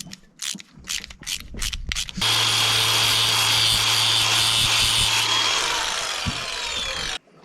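A few light clicks of handling, then about two seconds in a power grinder starts and runs steadily for about five seconds, grinding down cured JB Weld epoxy putty on a repaired steering shift-cable part. It cuts off suddenly near the end.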